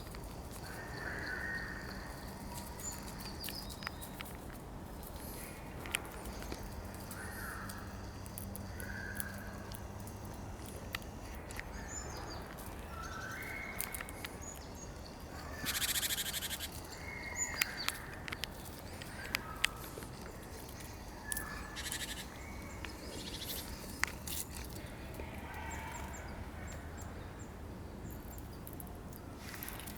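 Forest ambience with birds calling now and then in short, harsh calls. Scattered sharp clicks and a brief rustle about sixteen seconds in.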